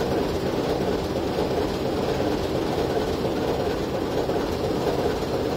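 Class 721 diesel shunting locomotive standing with its engine running steadily at idle.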